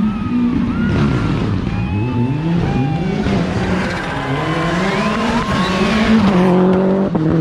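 Rally car's engine revving hard up and down through quick gear changes as it brakes into and accelerates out of a hairpin, with thin squeals over it that are typical of tyres at the limit; it settles to a steadier engine note near the end.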